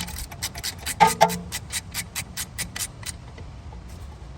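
A 13 mm ratchet clicking rapidly, about six clicks a second, as a brake caliper bolt is tightened. It stops about three seconds in. There is a brief metallic clink about a second in.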